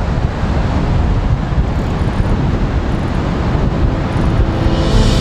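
Strong wind buffeting the microphone, with the steady wash of breaking surf beneath it.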